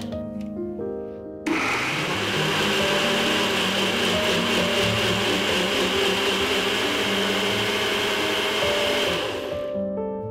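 Personal bullet-style blender running, grinding chopped onion, cilantro and other raw ingredients into a green curry paste. The motor starts about a second and a half in, runs steadily, and winds down near the end.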